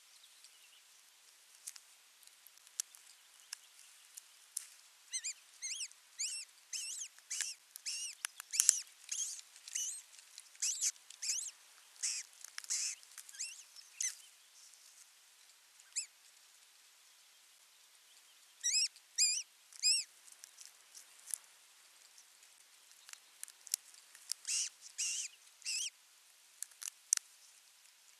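Ospreys at the nest giving high, thin chirps in quick runs, in three bouts with pauses between, while the adult tears a fish to feed its chick; a few sharp clicks fall in the gaps.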